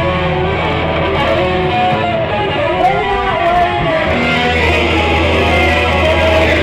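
Live rock band playing, led by electric guitar over a held low bass note; the bass drops out for a couple of seconds in the middle while a higher line wavers in pitch.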